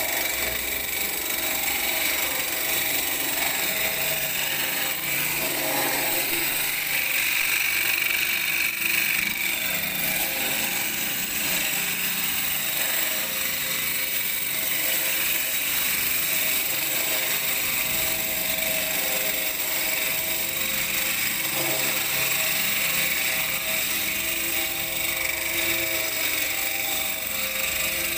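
Electric walk-behind concrete grooving saw running steadily as its water-cooled blade cuts a groove into a concrete floor: a continuous grinding noise with a strong high hiss and no breaks.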